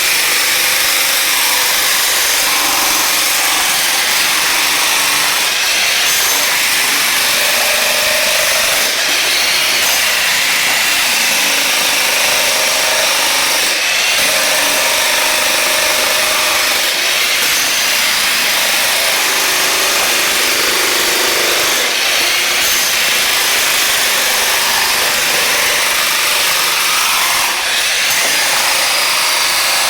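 Cheap Chinese electric jackhammer running steadily and loudly, its chisel breaking up glued-down wood flooring and the tile beneath it.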